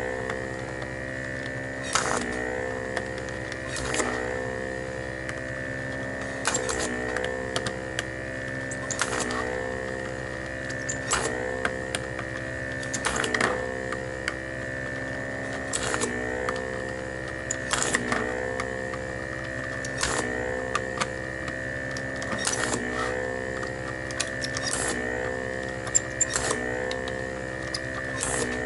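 Homemade vacuum desoldering iron's pump motor running steadily with a hum, broken by a sharp click about every two seconds, each with a brief dip in the motor's pitch, as solder is sucked from one switch pin after another.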